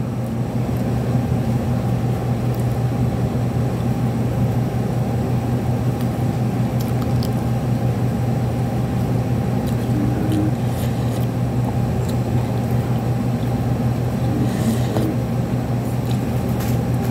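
Steady low motor hum, level and unchanging, with a few faint clicks of eating and a spoon now and then.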